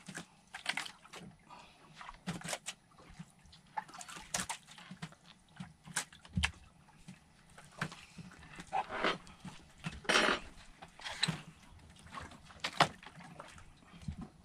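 A handline being hauled in by hand over the gunwale of a small wooden outrigger boat: scattered knocks against the hull and short splashes of water at irregular intervals, the loudest about ten seconds in.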